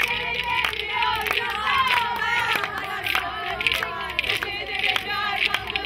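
Pairs of wooden spoons clacked together in a steady rhythm by dancers in a Turkish spoon dance, with several women's voices calling and singing over it.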